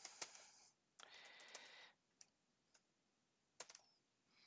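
Faint typing on a computer keyboard: a quick run of keystrokes during the first two seconds, then a few separate clicks.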